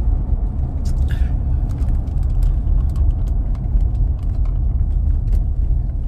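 Steady low road and engine rumble inside a moving pickup truck's cab, with scattered light ticks and clicks of acorns being blown off the truck.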